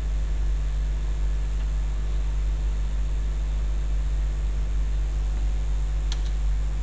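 Steady low electrical hum with background hiss, even and unchanging; a faint short click about six seconds in.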